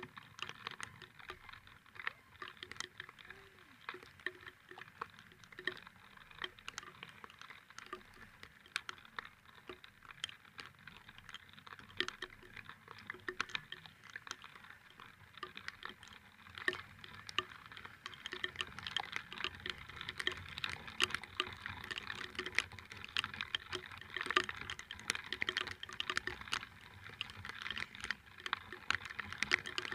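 Rain pattering close to the microphone: a dense run of small, irregular ticks, growing thicker in the second half, over a faint steady hum.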